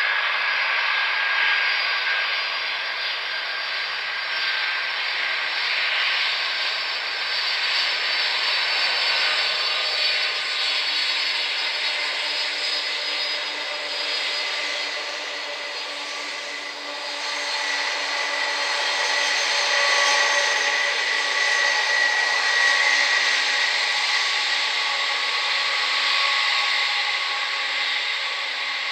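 Boeing 747-400 freighter's four jet engines during landing rollout, a steady loud jet roar with a high whine that grows stronger past the middle.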